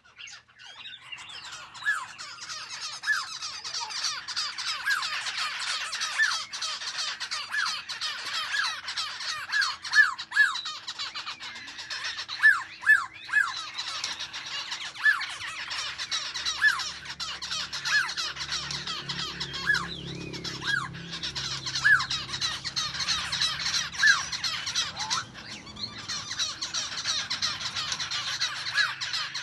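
Small songbirds chattering and calling, a dense continuous twitter with short, repeated down-slurred notes one or two a second.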